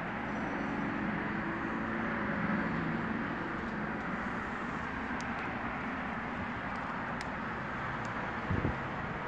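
Steady rushing background noise with a low hum, like traffic or a machine running, and a single low thump near the end.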